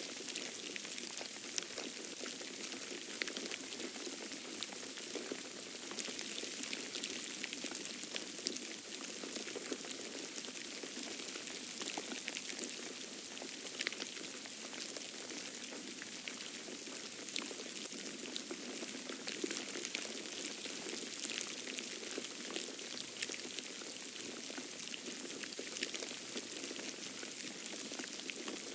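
Snowfall: a dense, irregular ticking of flakes landing over a steady hiss.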